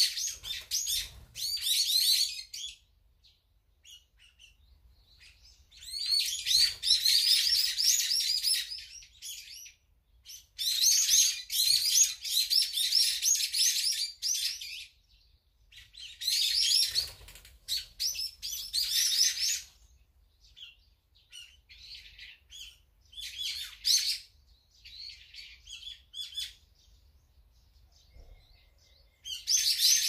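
A group of small songbirds chirping and chattering in dense, high-pitched bouts of a few seconds each, four loud ones in the first twenty seconds, then shorter, fainter calls with pauses between.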